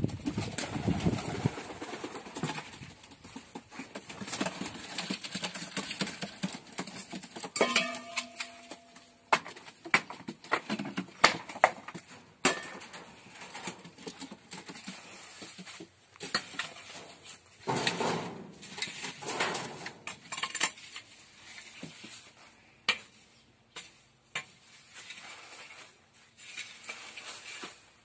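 A long-handled rake scraping over a dirt coop floor, with irregular knocks and clanks as it is dragged and set down, and occasional bird sounds from the poultry.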